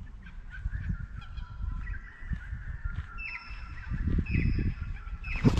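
A bird calling: a held high note early on, then from about three seconds in a run of short, high calls repeated about every half second.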